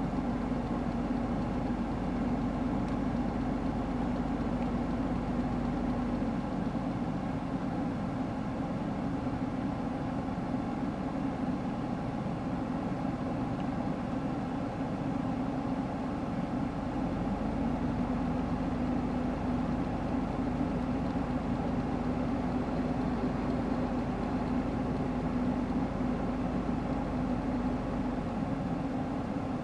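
103 series electric train running past: a steady rumble with a low, even hum that eases off for a stretch in the middle and then returns.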